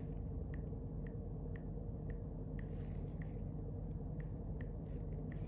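Faint, irregular ticks of a finger typing a password on an iPhone's on-screen keyboard, about two a second, over a steady low hum.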